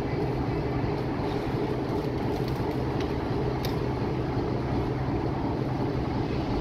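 Train approaching a station platform behind an electric locomotive: a steady low hum and rumble, with a couple of faint clicks about halfway through.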